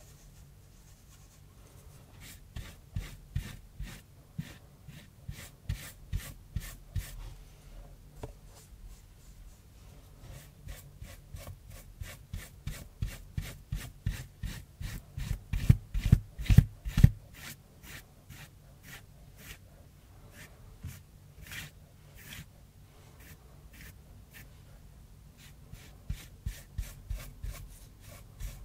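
Flat paintbrush stroking gouache onto cardboard in quick, short, scratchy strokes, several a second, starting about two seconds in and loudest around the middle.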